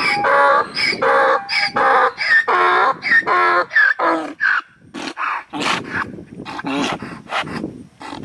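An animal calling over and over in short pitched cries, about two to three a second. After about five seconds the cries turn harsher and quieter.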